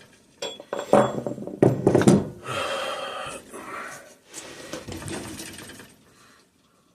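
Several sharp metallic taps in the first two seconds, a punch being struck to walk the crankshaft gear along the crank, followed by a few seconds of metal scraping and rattling that fades out near the end.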